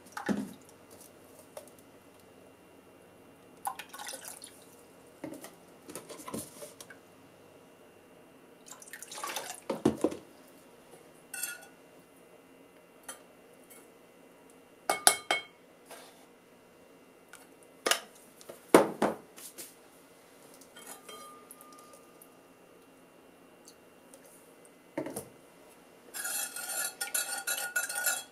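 A metal measuring spoon clinking and tapping against a rice cooker's metal inner pot as seasonings are spooned in, with separate clinks every few seconds. Near the end, a quick run of scraping and rattling as the spoon stirs the liquid in the pot.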